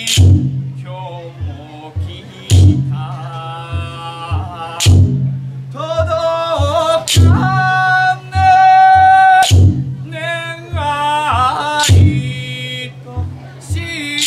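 A man singing a danjiri uta solo, drawing out long, wavering held notes. A sharp clack sounds about every two and a half seconds beneath the song.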